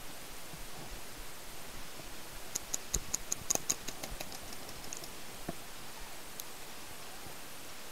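Paintball markers firing a rapid string of shots, about five a second, starting about two and a half seconds in and lasting about two seconds, with a single shot near the end, over a steady hiss.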